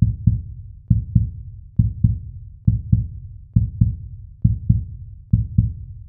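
Heartbeat sound effect: low, deep double thumps (lub-dub) repeating steadily a little under once a second, seven beats in all.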